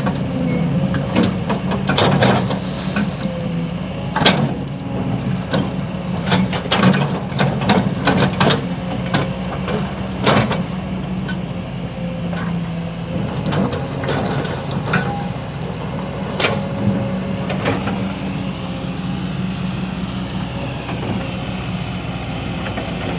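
Excavator's diesel engine running steadily under load, with many sharp knocks and clanks from the working machine through most of the clip, thinning out near the end.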